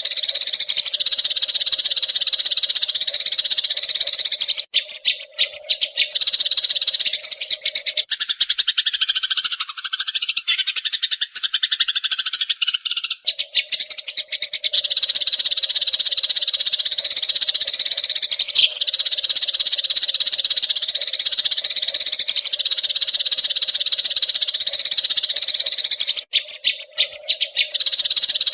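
Eurasian tree sparrow singing a long, rapid, continuous chattering roll. It breaks off briefly about five seconds in and again near the end, and turns lower-pitched for a few seconds in the middle. A steady low tone sits beneath most of it.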